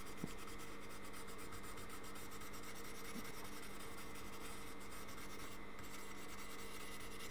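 Fibreglass scratch pen rubbing lightly and continuously over the copper contact tracks of a Fluke 189 multimeter's circuit board, scouring off the oxidation: a soft, even scratching over a faint steady hum.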